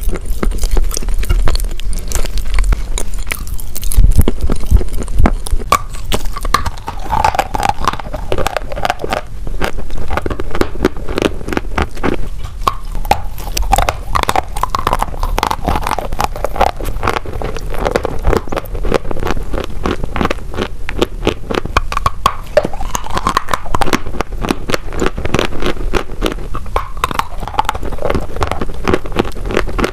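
Close-miked biting and chewing of chalk: dense crunching and crackling as pieces are bitten off a block and ground between the teeth.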